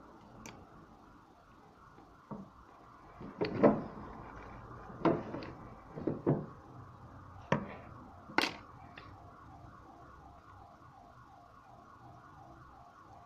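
A string of sharp clicks and light knocks from small watchmaker's tools and a wristwatch being handled and set down on a workbench, loudest about a third of the way in and again past the middle. In the second half a faint warble repeats several times a second in the background.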